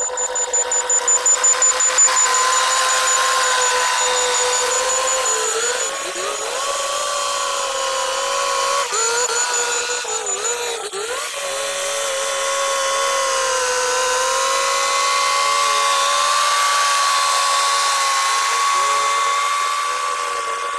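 Caterpillar D6R2 bulldozer working, pushing soil: a steady mechanical whine that wavers in pitch, over engine and track noise.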